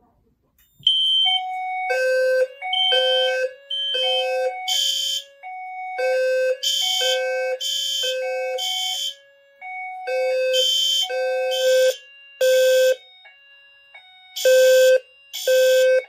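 Fire alarm sounding in alarm: the System Sensor sounder bases, among them a B200SR-LF low-frequency base, beep in code-3 temporal groups of three, starting about a second in. From about five seconds in, the ceiling horn strobes join with louder, harsher horn blasts in the same groups of three.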